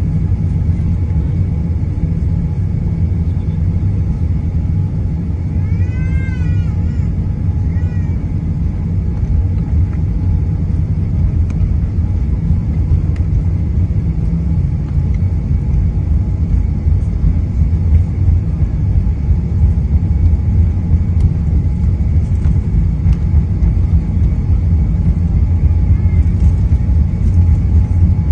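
Jet airliner cabin noise while taxiing: a steady low rumble of the engines and the wheels rolling over the tarmac, growing slightly louder toward the end. A short wavering high-pitched sound comes about six seconds in.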